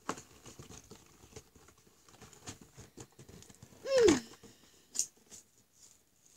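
Cardboard toy box being handled and worked out of its outer packaging: light taps, scrapes and rustles, with one short, loud squeal falling in pitch about four seconds in.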